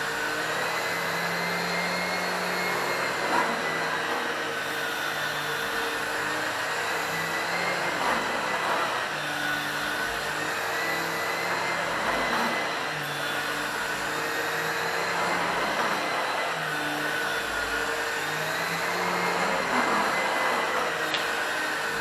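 Henry Xtra HVX200 tub vacuum cleaner running with its Airo brush floor head being worked over carpet: a steady motor and suction hiss with a high whine that wavers a little in pitch, and a couple of light clicks.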